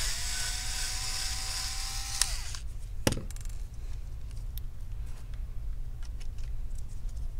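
Small cordless electric screwdriver running with a steady whine for about two seconds, then winding down. A single sharp click follows about a second later, then light handling ticks.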